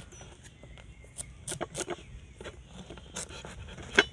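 Small knife cutting and scraping into the hard rind of a whole pumpkin on a wooden board: irregular clicks and scrapes, with a sharper knock about four seconds in.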